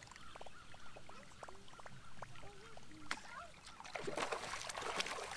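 Water splashing at the surface for about a second and a half near the end, over faint repeated bird calls and a few light clicks.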